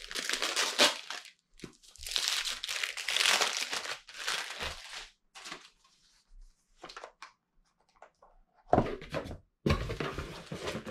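Crinkly packaging of a sticker set crinkling and tearing as it is opened by hand, in several bursts with a few light clicks between them. Two louder bursts of handling with dull thuds come near the end.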